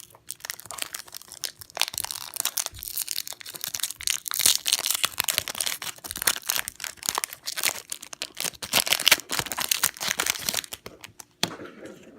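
A Topps baseball card pack's wrapper being cut with scissors and torn open, a dense, loud crinkling and crackling that dies away shortly before the end.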